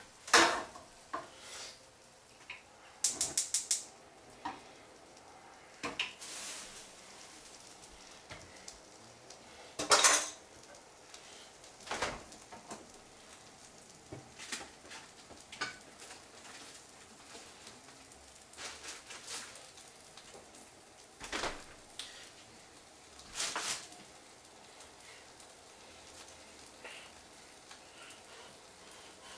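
Pots, pans and metal utensils clattering: scattered separate knocks and clanks, with a quick ringing rattle about three seconds in and the loudest clank about ten seconds in.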